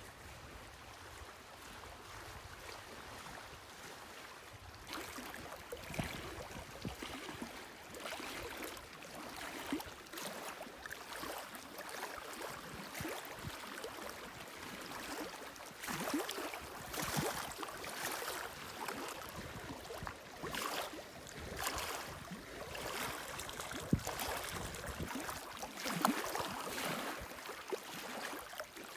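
Running water splashing and rushing with an irregular, uneven churn that grows busier after the first few seconds.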